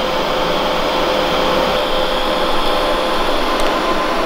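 Steady whirring hiss with a constant hum from a fan running while a steel exhaust bend is TIG welded.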